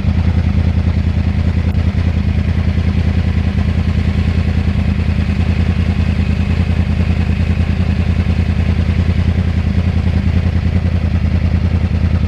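Yamaha R1 crossplane inline-four engine running steadily at idle, with a fast, even, lumpy pulse from its uneven crossplane firing order.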